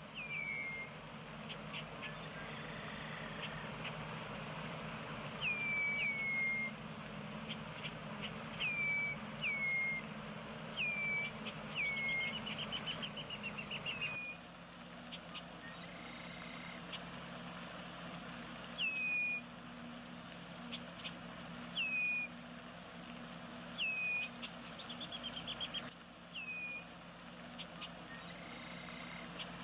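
A bird calling over and over: short notes that drop sharply in pitch, one every second or two, with a few quick rapid trills in between.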